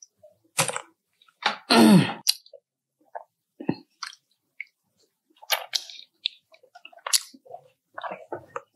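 Close-miked eating: chewing and crunching in separate short bursts, with one louder, longer sound of wavering pitch about two seconds in.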